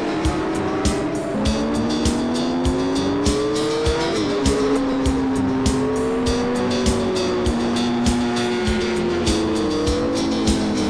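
Sport motorcycle engines at speed: the pitch climbs under acceleration and drops suddenly at gear changes, with stretches held steady. Background music with a steady beat plays over them.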